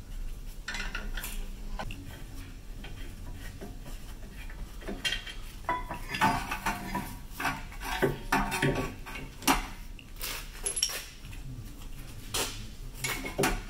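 Metal hand tools and brake parts clinking and clattering as a car's brake caliper is unbolted and its pads handled: irregular knocks and taps, sparse at first and busier from about five seconds in.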